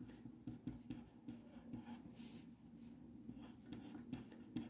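A pen writing on a paper textbook page: faint, short scratching strokes.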